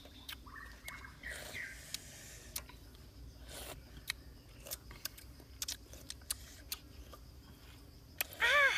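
Light, irregular clicks and clinks of metal spoons against clam and mussel shells and the wok while eating. Near the end comes a short vocal sound from one of the boys.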